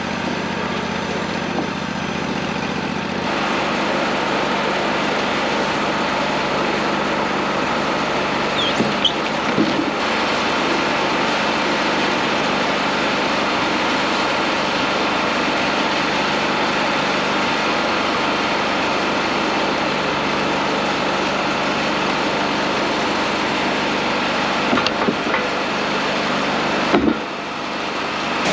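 WoodMizer LT40 Wide band sawmill running steadily, its engine and band blade working through a hickory log. The low drone shifts about three seconds in, and a few short knocks come near the end.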